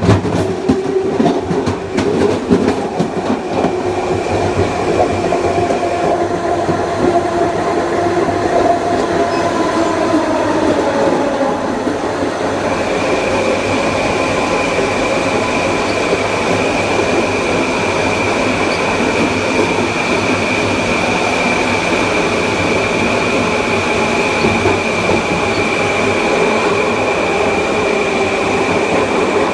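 Long Island Rail Road M9 electric multiple unit under way, heard on board: steady wheel-on-rail rumble with whining tones from its Mitsubishi IGBT-VVVF inverter and AC traction motors. A few wheel knocks over rail joints come in the first couple of seconds, a pair of tones slides down in pitch about ten seconds in, and a high steady whine drops out for several seconds and comes back.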